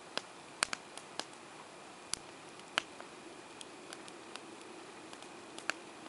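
Wood campfire crackling: irregular sharp pops and snaps, a dozen or so, the loudest a little under a second in and near three seconds, over a faint steady hiss.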